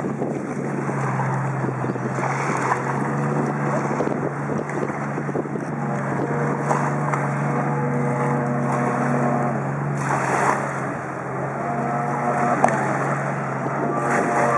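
Watercraft engine running steadily, a drone that holds one pitch, under wind and water noise.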